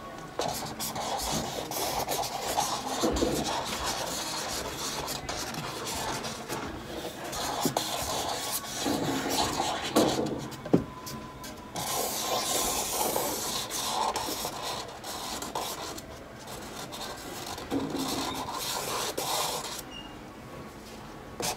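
Charcoal stick scratching and rubbing across a stretched canvas textured with modeling paste, in a run of rasping strokes with short breaks between them.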